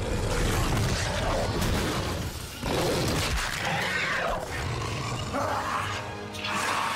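Movie monster sound effects: a winged vampire beast roaring and snarling over crashing, shattering noise.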